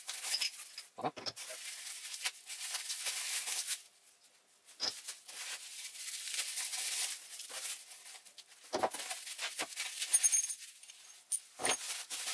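Bubble wrap and plastic packaging crinkling and rustling as small parts are handled and unwrapped, with a few light knocks.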